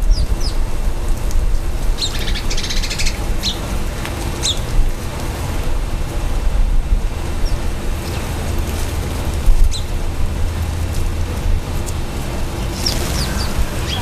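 Small birds chirping in short, high calls scattered through, with a brief rapid trill about two seconds in and a cluster of chirps near the end, over a steady low rumble.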